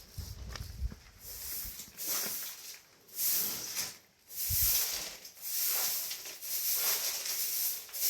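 Repeated hissing scraping or brushing strokes, about one a second, each lasting most of a second.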